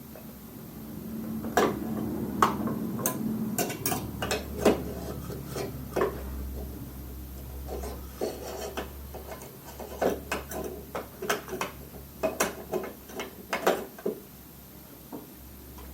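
Hand work on a moped's front fork: metal parts and tools clink and knock irregularly, with some scraping and rubbing in the first few seconds.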